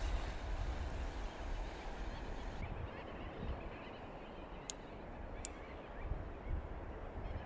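Wind rumbling on the microphone with distant bird calls, and two sharp clicks a little under a second apart near the middle.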